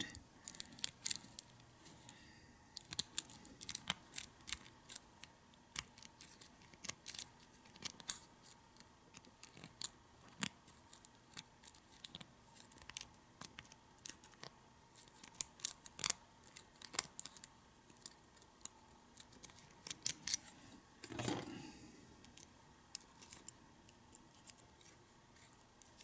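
Lock pick and tension wrench working the pins of a five-pin, Yale-keyway rim cylinder: irregular small metallic clicks and scrapes as the pick lifts pins in the keyway.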